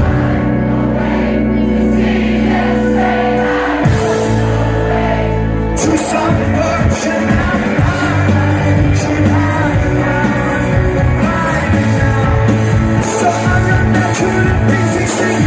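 Live rock band playing with lead vocals: held chords for the first few seconds, a chord change about four seconds in, then the band's playing turns rhythmic and fuller about six seconds in as the singing carries on.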